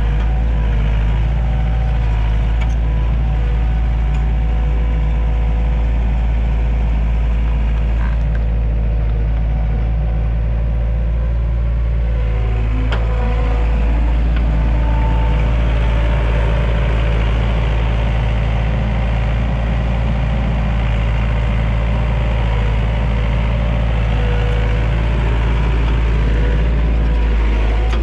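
Tractor engine running steadily at a constant speed, a loud, even low drone.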